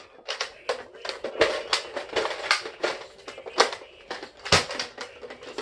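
Plastic toy blaster being handled and cocked: a run of irregular sharp plastic clicks and clacks, two or three a second, as a stiff cocking action is worked.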